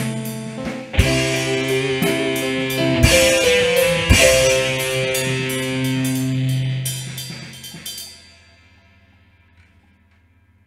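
Instrumental music with held notes over a steady ticking beat and a few heavy drum hits, ending about eight seconds in; after that only a faint low hum is left.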